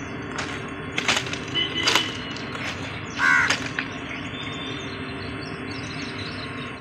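Outdoor ambience beside the railway track: a steady low hum and noise, a few sharp knocks about one and two seconds in, and a short bird call about three seconds in.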